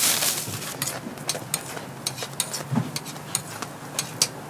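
Metal spatula and steel hotteok press clicking, tapping and scraping on a flat steel griddle as sweet pancakes are flipped and pressed. A short rush of noise at the start, then irregular sharp clicks a few times a second.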